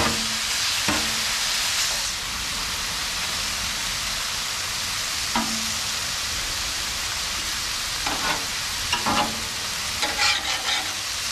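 Steak strips and shrimp sizzling steadily on a flat-top steel griddle, louder for the first two seconds. Metal spatula and tongs click and scrape on the cooking surface, a few single taps at first and a cluster of clatters near the end.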